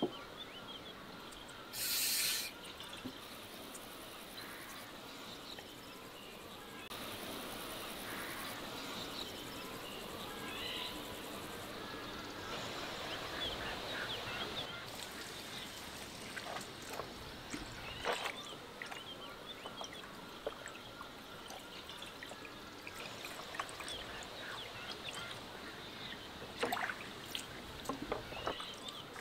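Trickling water with scattered bird chirps, and a short loud rush of noise about two seconds in. Near the end, water from a garden hose splashes over a lamb leg into a plastic basin.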